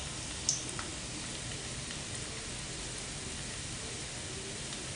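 Slivered garlic sizzling steadily in hot oil in a wok as it browns, with one short click about half a second in.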